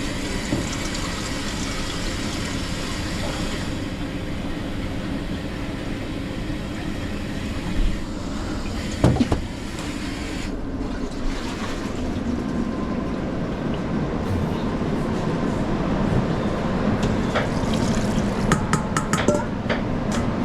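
Liquid running or being poured in two spells, at the start and again about halfway through, over a steady low rumble of kitchen background. A few clinks and knocks near the end.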